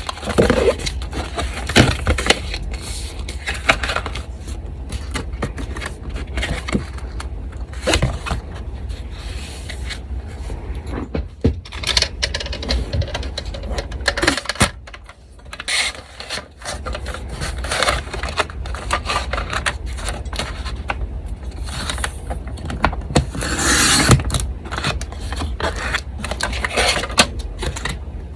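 Sheets of coffee-dyed paper being handled on a desk: irregular rustling and scraping with sharp clicks and taps, over a steady low hum from an electric fan.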